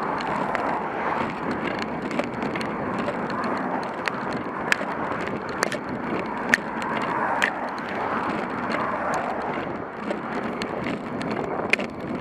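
Riding noise of a bicycle climbing at low speed, picked up by a bike-mounted camera: a steady rough hiss of road and air, broken by frequent sharp clicks and rattles from the bike and the camera mount over the pavement.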